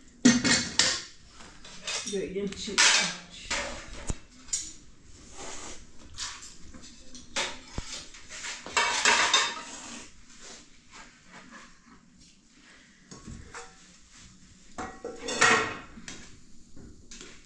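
Steel plates, bowls and pots clattering as they are handled and set down on a concrete floor: scattered knocks and clinks, with several louder clatters spread through.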